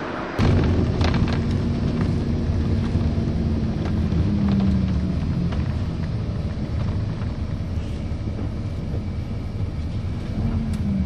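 Low, steady rumble of a moving vehicle heard from inside: engine hum and road noise, starting suddenly about half a second in.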